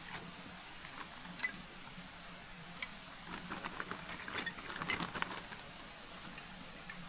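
Scattered light clicks and small rustles, irregular and quiet, over a faint steady hiss.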